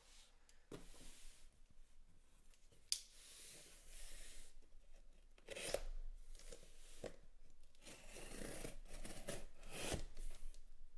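A blade slicing through the packing tape along a cardboard case's seam, with tearing and scraping strokes and a sharp click about three seconds in. The cutting gets louder and more continuous in the second half.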